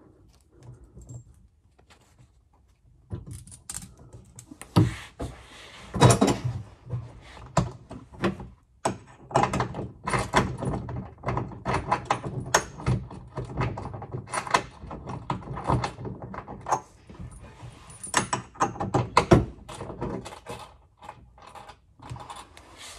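Irregular clicks, knocks and light metallic clatter of hand tools and metal hardware, typical of strap bolts being tightened under a van body. A few of the knocks are loud.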